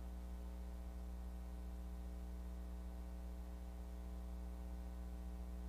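Steady electrical mains hum with a faint hiss behind it, holding unchanged throughout.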